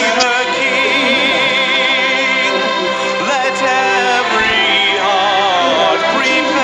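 Intro music with a singing voice held in wide vibrato over a steady accompaniment.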